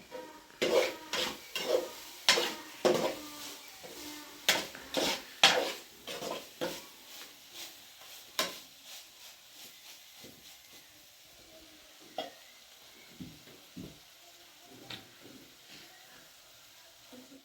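A utensil knocking and scraping in a pot or dish, about two sharp strikes a second for several seconds, then scattered lighter clinks.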